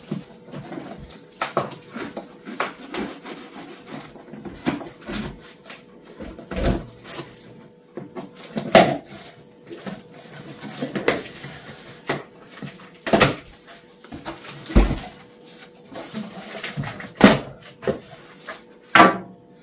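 Knife slicing the packing tape on a large cardboard box, with irregular scrapes and sharp knocks of the cardboard being handled, several of them loud.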